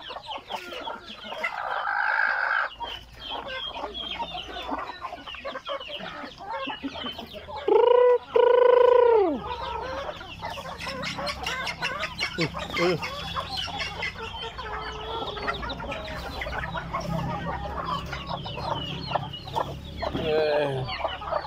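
A flock of chickens clucking, with a rooster crowing loudly once about eight seconds in, a short note then a long held one.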